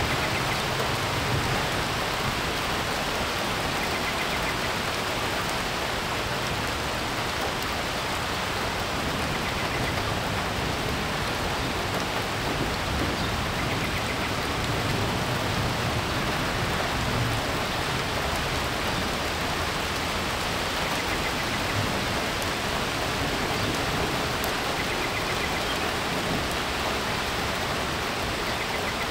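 Rain falling at the front edge of a thunderstorm, a steady even hiss with no thunder.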